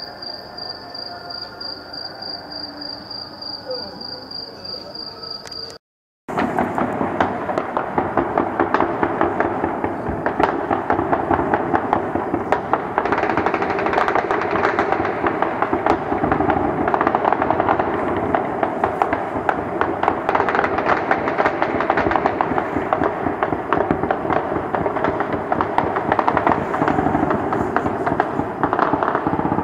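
For the first few seconds, crickets chirping steadily. After a brief cut, a loud, dense, continuous clatter of many pots and pans struck with spoons across a town, mixed with cracks of gunfire and distant voices.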